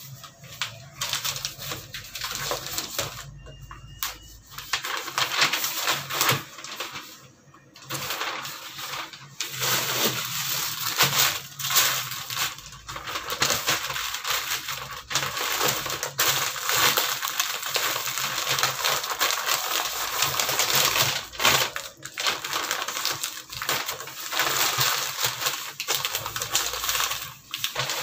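Sheets of newspaper rustling and crinkling as they are handled, folded and pressed around a packet, with a few short pauses in the first eight seconds.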